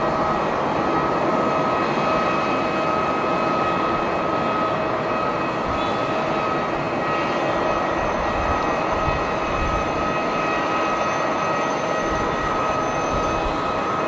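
Jet airliner engines running, a steady rushing noise with a high whine held at one pitch. Gusts of wind rumble low on the microphone.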